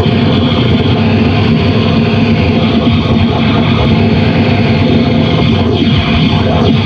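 Harsh noise music from a chain of effects pedals played through a Marshall speaker cabinet: a loud, dense, unbroken wall of distorted noise, with a few faint sweeping pitch glides near the end.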